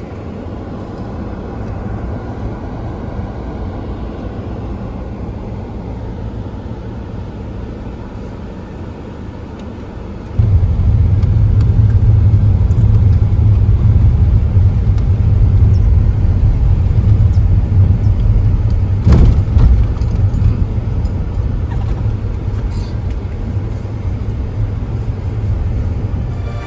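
Steady low rumble like a car driving, which jumps much louder about ten seconds in.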